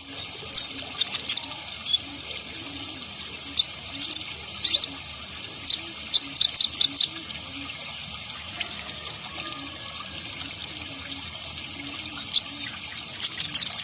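Kolibri ninja sunbird calling: sharp, high chirps in quick clusters of several notes, separated by pauses of a second or more, over a steady background hiss.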